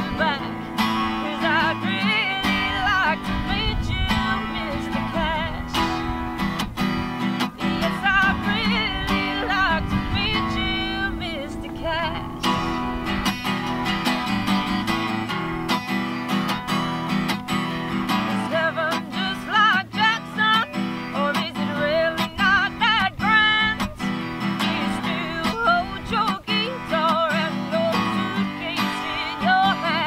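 Acoustic guitar strummed steadily, with a woman singing a country song over it in phrases.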